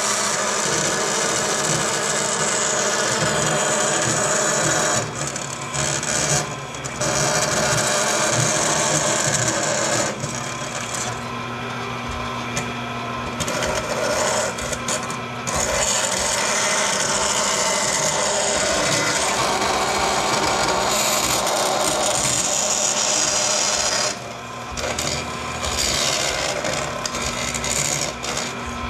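Vertical bandsaw cutting aluminum sheet: a steady rasping hiss of the blade in the metal over the saw motor's hum. The cutting eases off briefly three times, about 5, 10 and 24 seconds in, as the workpiece is shifted.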